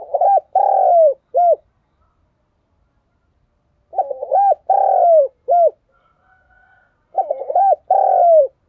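Spotted dove cooing: three phrases about three seconds apart, each a quick run of short notes, then a longer falling coo and a short final note.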